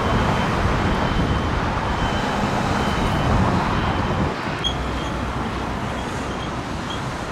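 Road traffic going by, with a loud low rumble that eases off about four seconds in. Faint short high chirps repeat about twice a second in the second half.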